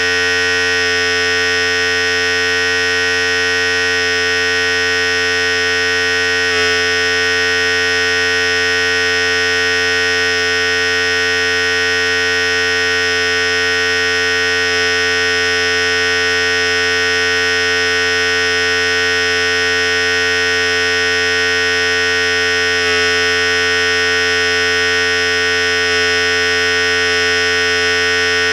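Philips Series 5000 electric hair clipper running steadily with a continuous even buzz.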